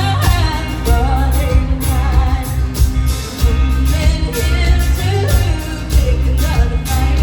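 Live rock band playing with a lead singer over a heavy, steady bass line.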